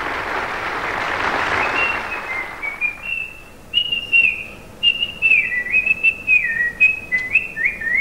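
Audience applause dies away over the first few seconds while a person whistles a tune, a run of short notes stepping up and down, with a few sharp clicks beneath it.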